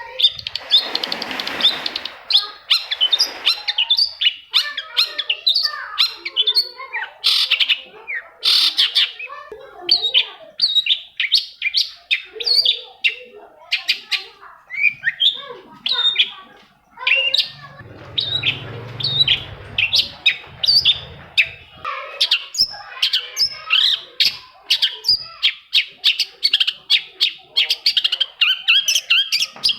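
Long-tailed shrike singing a fast, chattering song of rapid high notes with barely a pause. The song is broken by noisier, hissing stretches near the start and about two-thirds of the way through.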